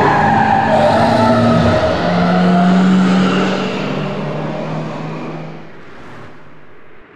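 Recorded car sounds played through the installation's loudspeakers: tyres screeching in the first couple of seconds, then a steady engine hum that slowly fades away.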